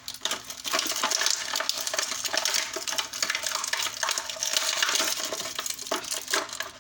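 Plastic toy packaging crinkling and clicking as it is handled and opened, with small plastic pieces knocking together: a dense, unbroken run of crackles and light clicks that thins out near the end.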